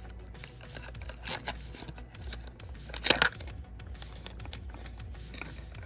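Thin plastic wrapper bag of a Mini Brands capsule being torn open and crinkled by hand, with louder rips about a second in and about three seconds in.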